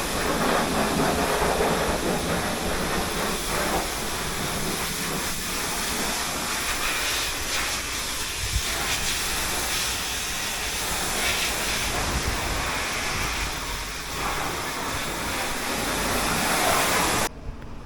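High-pressure washer spraying water onto a vehicle: a steady, loud hissing rush that cuts off suddenly near the end.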